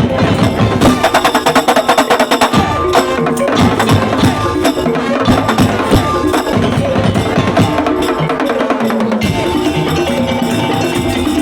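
Madurese daul (tongtong) percussion ensemble playing a fast, dense rhythm: wooden knocks and drums under ringing tuned percussion.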